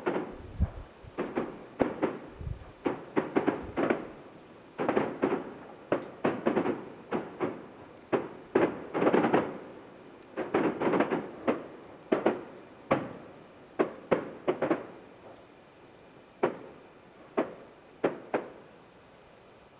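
Fireworks display about a mile away: a rapid, irregular run of shell bursts, each bang trailing off in an echo. The bursts come thickest through the middle and thin out to single bangs near the end.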